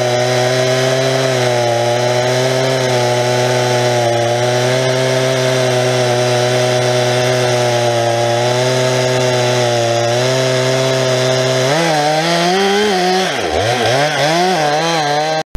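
Stihl 391 two-stroke chainsaw running steadily at high revs under load, cutting the felling notch into the base of a large dead oak. About twelve seconds in, the engine pitch starts to waver and dip as the bar works through the cut, and the sound stops suddenly at the very end.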